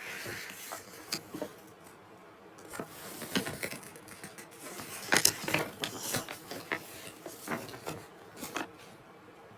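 Irregular light clicks and taps, a few a second, with a cluster of louder knocks about halfway through.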